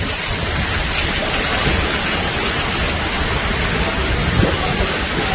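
Heavy rain with gusting wind on banana leaves: a steady, dense rushing hiss with a low rumble underneath.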